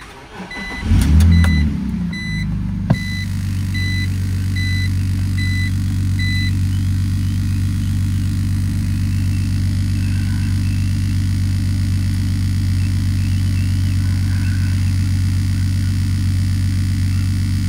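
2003 BMW Z4's 3.0-litre straight-six cranked by the starter and catching about a second in, then idling steadily. A dashboard warning chime beeps repeatedly for the first six seconds, and a sharp click sounds about three seconds in.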